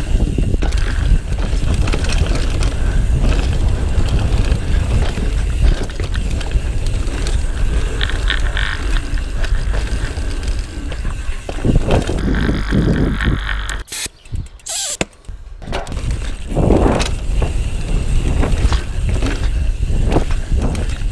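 A mountain bike ridden fast down a dirt trail, heard from a GoPro on the bike or rider: tyres rumbling and crunching over the dirt, the bike rattling over bumps, and wind buffeting the microphone in a heavy low rumble. The sound drops away almost to nothing for about a second and a half, about two-thirds of the way through.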